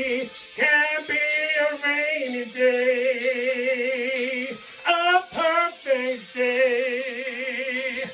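Song with a sung melody, long held notes sung with vibrato in several phrases.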